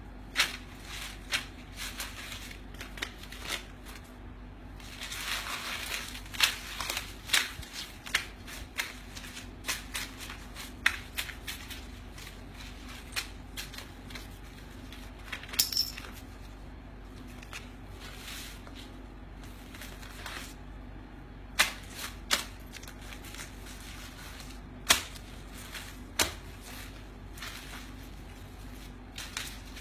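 Paper banknotes rustling and snapping as hands gather and stack loose bills on a hard floor: irregular crisp clicks and flicks, with a longer stretch of rustling about five seconds in.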